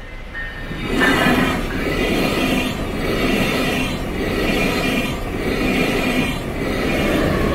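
Siemens Venture passenger coaches rushing past at speed, their wheels beating out a pulsing rhythm about once a second as the trucks pass. A faint steady whine comes in near the end.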